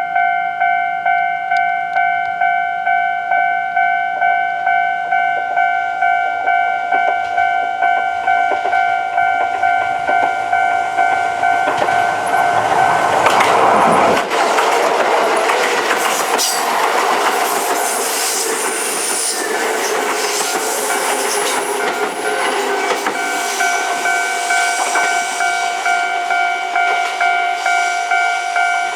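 Japanese level-crossing alarm bell dinging at a steady even beat, while Kintetsu 12200- and 22000-series express trains pass through the crossing from about twelve seconds in, their rumble and wheel clatter drowning the bell for around ten seconds before it rings out plainly again.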